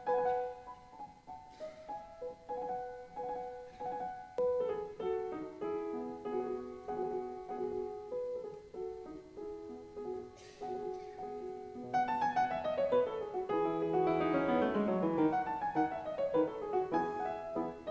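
Piano music: a gentle melody of held notes that grows louder about twelve seconds in, with a quick run of notes cascading downward in pitch near the end.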